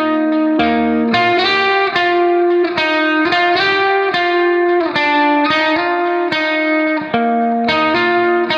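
Background music: an instrumental guitar piece with plucked notes and chords struck at an even pace.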